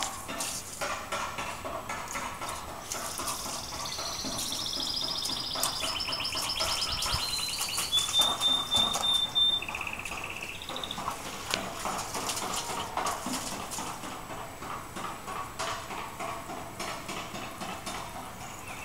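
Thin jet of water from a garden hose fitting spattering and dripping on floor tiles, with many small irregular splashes. About four seconds in, a songbird sings a run of high trills and whistles for several seconds.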